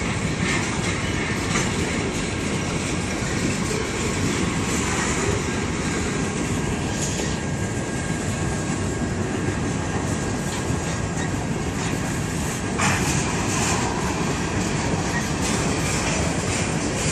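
Freight train's covered hopper cars rolling past, a steady rumble of steel wheels on the rails with faint high ringing tones from the wheels. A sharper knock about thirteen seconds in.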